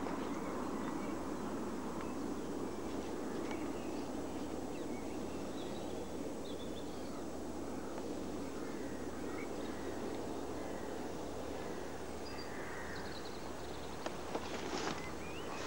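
Outdoor ambience: a steady low rushing background noise with scattered small bird chirps and calls, and a few sharp clicks near the end.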